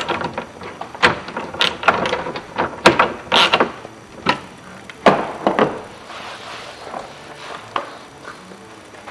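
Hand work on a truck door's lock mechanism: an irregular run of clicks, knocks and short scrapes of parts being handled and fitted, busiest in the first half and thinning out toward the end.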